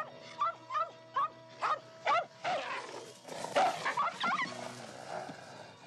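A small dog barking repeatedly in short, high yaps, about two a second at first, with a quicker flurry of yaps about four seconds in, over background film music.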